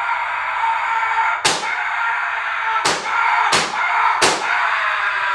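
Four sharp bangs over a steady, noisy hum: one about a second and a half in, then three more in quick succession, roughly two-thirds of a second apart.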